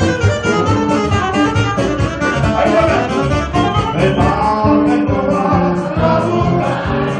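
Live band playing up-tempo music with a saxophone lead over a steady beat.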